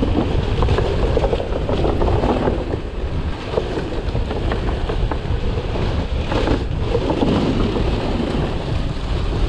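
Mountain bike riding down a trail: wind rushing over the microphone, with tyre roar and scattered short knocks and rattles from the bike over rough ground.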